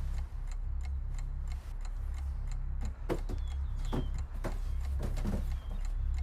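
Steady clock-like ticking, about three ticks a second, over a low steady drone, with a few heavier knocks in the second half.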